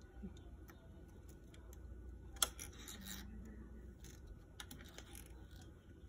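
Filament being fed by hand through a snap-in printed plastic filament guide into a 3D printer's extruder: faint scattered plastic clicks and light scraping, with one sharper click about two and a half seconds in.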